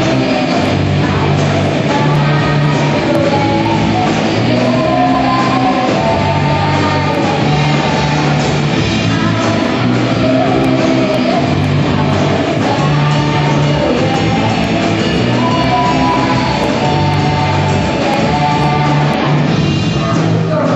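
Rock song played by a band: electric guitar over a bass line that steps between notes, with singing.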